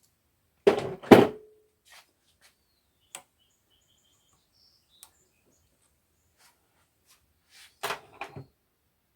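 Hand tools knocking and clinking on the metal parts of a backhoe hydraulic control valve as it is taken apart: two sharp knocks about a second in, the second with a brief ring, a few light ticks, then a quick cluster of knocks near the end.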